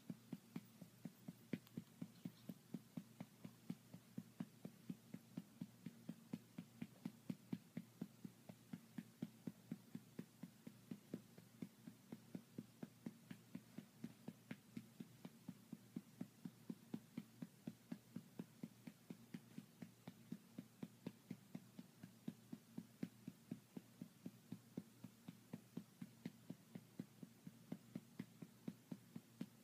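A hand patting a baby's back to bring up a burp: soft, low pats in a steady rhythm of about three a second.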